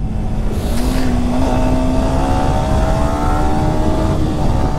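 Yamaha R15M's 155 cc single-cylinder engine running at highway speed under the rider, its note climbing slowly as the bike gathers speed, over a constant low wind rumble on the microphone.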